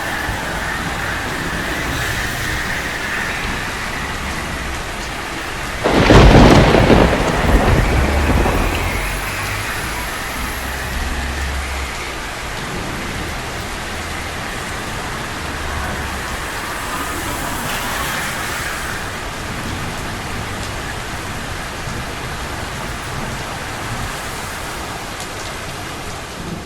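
Steady rain falling, with a sudden loud clap of thunder about six seconds in that rumbles away over the next few seconds.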